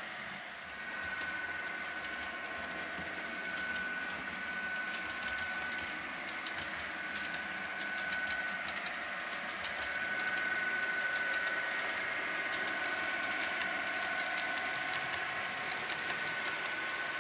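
Model railway train running: a small locomotive motor whining steadily, with the wheels ticking lightly over the track.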